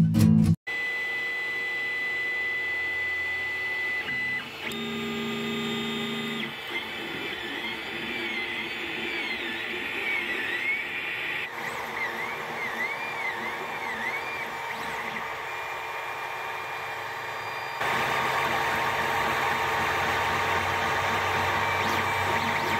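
Creality Ender 3 3D printer at work, its stepper motors whining in tones that rise and fall with each move of the print head over a steady fan hum. The fan noise steps up and grows louder about 18 seconds in.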